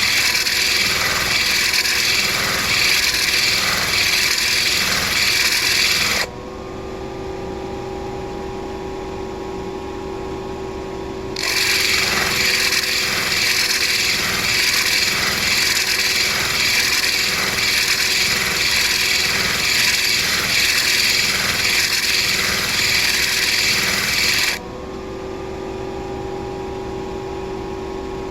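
A stone being ground against a spinning motorized grinding wheel: a loud gritty scraping. It stops twice, about six seconds in for some five seconds and again near the end, leaving the wheel's motor humming steadily.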